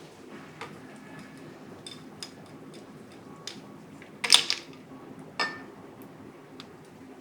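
Tableware clinking: light scattered taps and clicks, then a louder cluster of ringing clinks about four seconds in and one more a second later.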